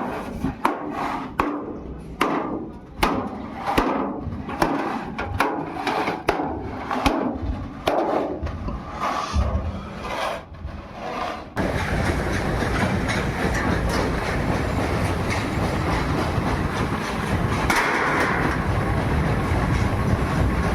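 Irregular hammer blows on sheet steel from old oil drums, several a second. About eleven seconds in they cut off abruptly, giving way to a steady loud machine noise.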